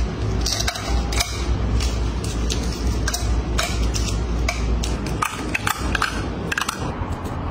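Clear plastic jars knocking and clicking as they are handled and set out, with many sharp irregular clicks, over a steady low hum.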